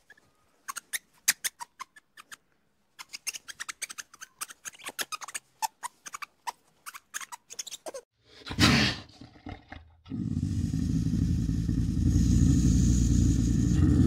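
Ring-tailed lemur making short, sharp clicks and chirps in irregular runs for about eight seconds, then a quick whoosh. From about ten seconds in, a caracal gives a loud, steady, low rumbling growl.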